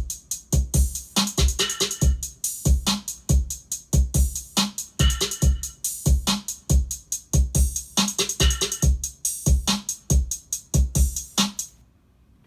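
Drums-only electronic beat programmed in Maschine playing back: a looping pattern of deep kick drums and sharp, bright higher hits. It stops about a second before the end.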